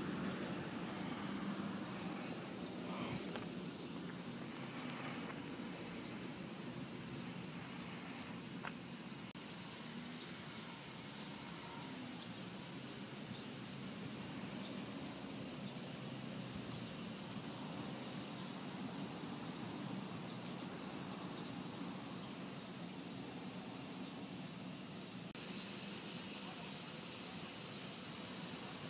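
Cicadas droning in the trees, a steady high-pitched shrill with no breaks, a little louder near the end.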